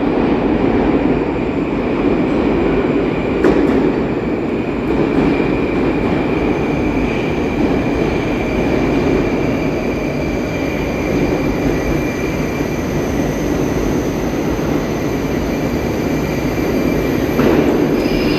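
Metro trains in an underground station: a steady rumble of wheels and running gear with a steady high whine over it, swelling louder near the end as a train enters the platform.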